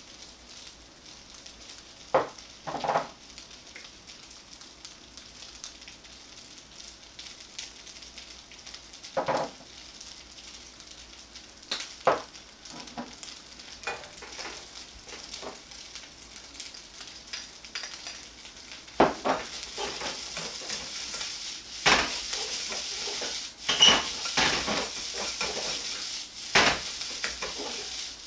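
Egg fried rice sizzling in a wok, with a metal ladle scraping and knocking against the pan now and then. About two-thirds of the way through, the sizzle grows louder and the ladle strikes come more often as the rice is stir-fried hard.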